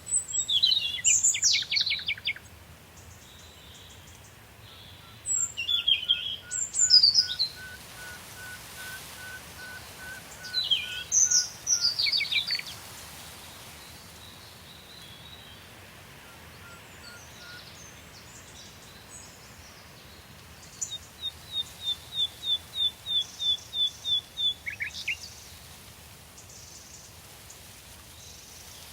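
Several songbirds singing: three loud, complex song phrases in the first half, with a faint run of lower repeated notes behind them. Later comes a series of about a dozen even, high notes, about four a second, ending in a quick downward flourish.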